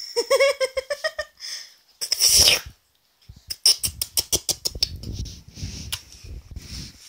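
A baby babbling and squealing in quick, short, high-pitched bursts, with a fast run of breathy pulses about four seconds in, like excited giggling.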